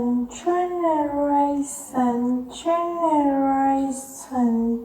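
A high-pitched voice chanting the word "generation" twice in a drawn-out, sing-song way, with the pitch gliding down on each word.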